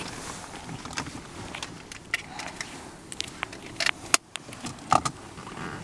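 Scattered small clicks and knocks inside a stationary car over a low, steady background rumble, with one sharper click about four seconds in.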